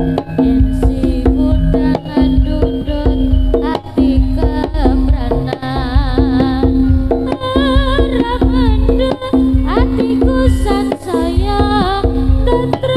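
Live jaranan gamelan music: hand drums beat a driving rhythm over a steady held low note. A wavering melody line with vibrato comes in strongly about seven seconds in.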